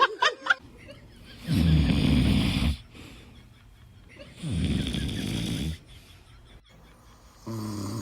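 An adult snoring loudly: three long, rattling snores about three seconds apart, each lasting over a second. A few short sharp sounds come in the first half second.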